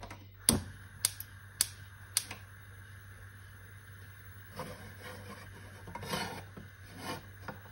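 Gas hob's spark igniter clicking four times, about half a second apart, as the burner is lit under a frying pan, followed by a few soft rushing noises.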